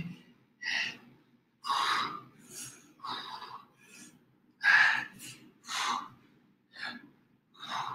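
A man breathing hard and fast from exertion, a sharp breath in or out about once a second, while doing a quick-paced hip-raise exercise.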